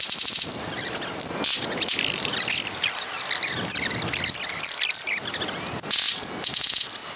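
Shooting-range audio fast-forwarded about tenfold: the voices and rifle and pistol fire of the drill come out as a rapid jumble of high-pitched squeaks, chirps and clicks.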